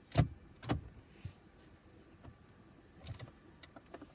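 Sharp clicks and knocks from hands handling the car's plastic interior parts around the new start button. Two loud knocks come in the first second, a fainter one a little later, and a small cluster about three seconds in.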